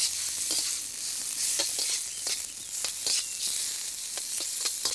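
Pasta and chanterelle mushrooms sizzling in hot oil in a steel wok, with frequent short scrapes and clinks as two metal utensils toss the food against the pan.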